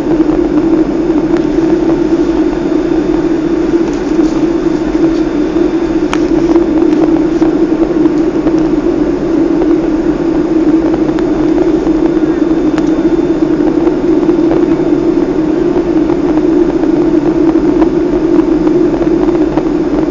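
Steady cabin noise of a Boeing 757-224 airliner in flight on descent: the even rush of engines and airflow with a constant droning hum that does not change.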